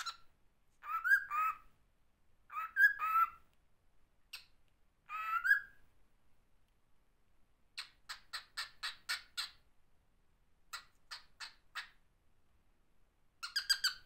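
A cockatiel calls. First come three short warbling whistles that waver up and down in pitch. Then come quick runs of short sharp chirps, about six a second, ending in a fast burst of chirps.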